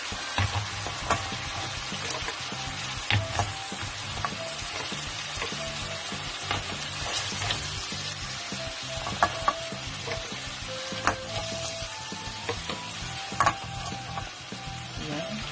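Clams in their shells sizzling in hot oil in a metal wok on a bed of sautéed garlic, ginger and onion, with scattered sharp clicks as the shells knock against each other and the pan.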